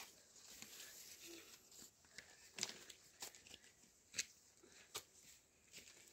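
Faint rustling of dry straw and twigs, broken by a few short sharp snaps or clicks.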